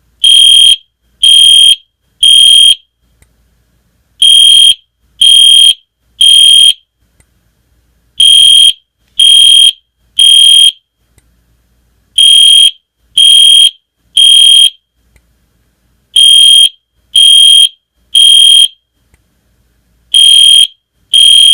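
EST Genesis fire alarm horn sounding in the temporal-3 pattern, the standard fire evacuation signal: loud, high-pitched beeps in groups of three, each group followed by a pause of about a second and a half. Five full groups sound, and a sixth begins near the end.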